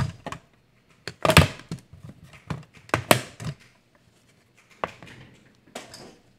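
Clear plastic cutting plates and a manual die-cutting machine being handled after a cut: a string of sharp knocks and clatters as the plate sandwich is pulled out and the machine and plates are set aside on a wooden desk, loudest a little over a second and about three seconds in.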